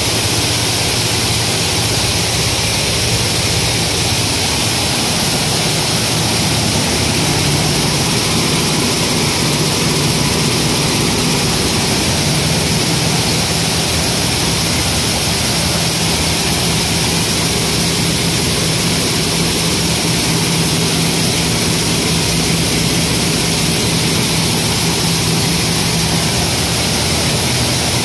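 Grain cleaning machine running with grain flowing across its sieve deck: a steady mechanical rushing noise with a low hum underneath.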